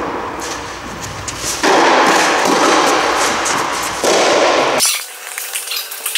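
Tennis balls struck with rackets during a rally, the sharp hits echoing in a large hall over a loud steady hiss.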